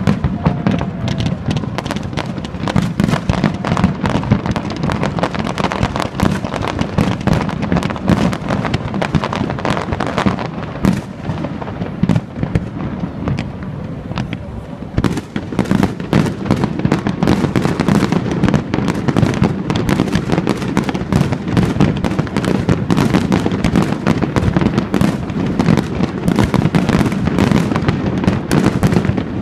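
Aerial fireworks bursting in a dense, continuous barrage of overlapping bangs and crackles, thinning a little near the middle and then building up again thicker.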